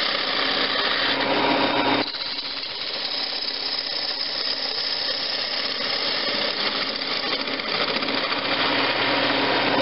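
Wood lathe spinning a wooden blank while a gouge cuts into it: a steady rush of cutting noise over the lathe motor's hum, roughing waste wood off the lid. The cutting drops a little in level about two seconds in and then carries on.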